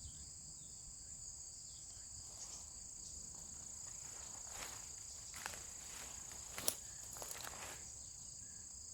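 Steady, high-pitched chorus of insects trilling. A few brief crackles in the second half, the loudest about two-thirds of the way through.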